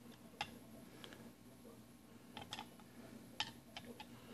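Spoon stirring a drink in a glass, clinking faintly against the glass several times at irregular intervals.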